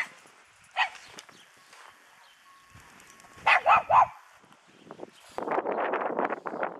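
Small dog, a pug, barking: one short bark about a second in, then three quick barks in a row about halfway through, the loudest sound here. A longer, rougher sound follows near the end.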